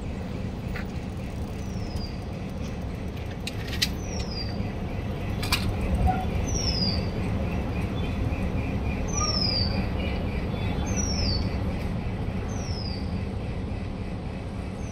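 A bird repeats a short, high, falling whistle about every two seconds over the steady low rumble of a train running away down the tracks. Two sharp clicks come about four and five and a half seconds in.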